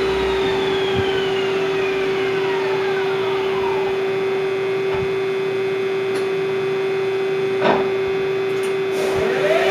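Ganesh GT 1850 CNC lathe spindle drive winding down, its whine falling in pitch over about four seconds over a steady machine hum. There is a single click about eight seconds in, and near the end the whine rises again as the spindle speeds back up.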